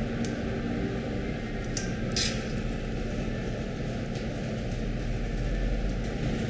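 Spaghetti being plated with metal tongs from a stainless steel pan: wet, squishy noodles sliding and light clinks of the tongs against the pan, with one short sharper scrape about two seconds in, over a steady low background hum.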